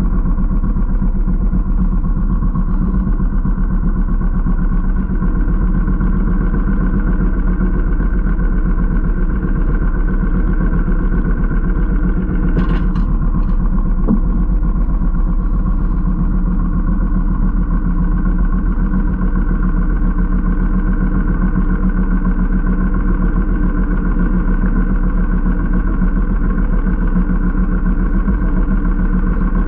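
Small boat engine running steadily at an even speed, with no change in pitch or pace. There is one short click about thirteen seconds in.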